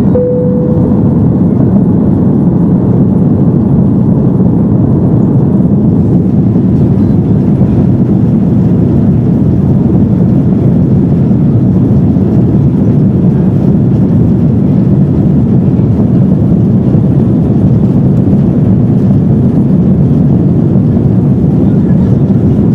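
Loud, steady noise inside an Airbus A330-200 cabin: engine and airflow rumble, strongest in the low range. A brief single tone sounds in the first second.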